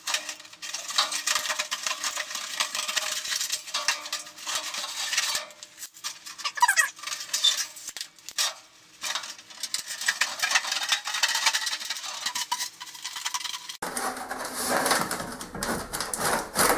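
Flexible aluminium foil dryer duct crinkling and rustling with small metallic clicks as it is handled and cut with snips. Near the end the rustling turns fuller and lower as the duct is pushed into place.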